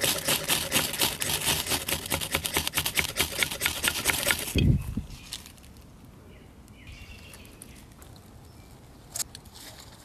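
Ferrocerium rod scraped rapidly and repeatedly with a knife, throwing sparks onto dry leaf tinder to light a fire. The scraping stops about halfway through with a low thump, and after that only faint background sound remains.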